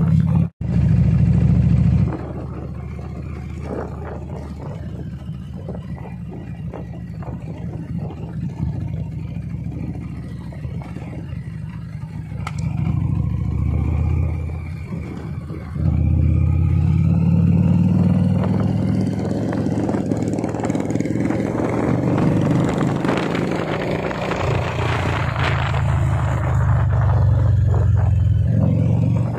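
Motorcycle engine and road noise heard from the saddle while riding, a steady low rumble. It drops sharply in loudness about two seconds in and comes back up about sixteen seconds in.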